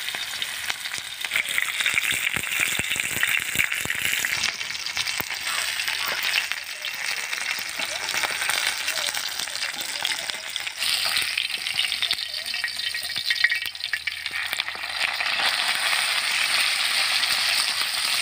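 Whole masala-coated pomfret sizzling in oil on a flat metal griddle, with a steady frying hiss. A metal spatula scrapes and clicks against the griddle now and then.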